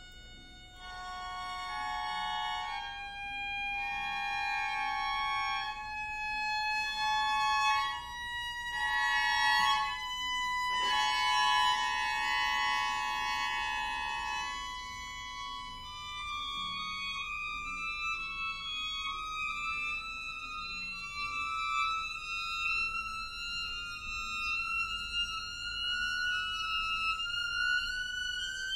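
String quartet playing held high notes on violins and other bowed strings, changing pitch in steps. About halfway through, several high lines begin sliding slowly upward together in a long rising glissando.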